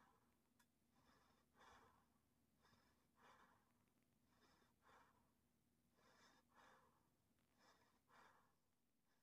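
Near silence, with faint breathing: soft in-and-out breaths about every second and a half.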